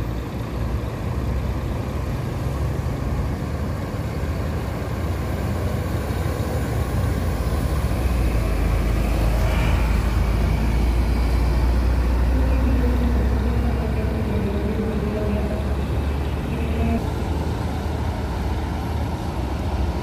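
Tour bus's diesel engine pulling away and driving past close by: a deep rumble that grows loudest about ten seconds in, then fades as the bus moves off.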